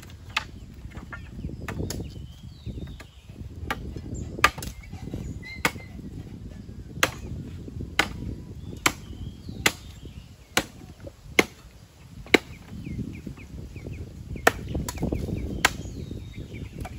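Repeated sharp chopping strikes from a blade biting into wood or a chopping board, about one a second with a short pause about three-quarters of the way through. Chickens cluck faintly in the background.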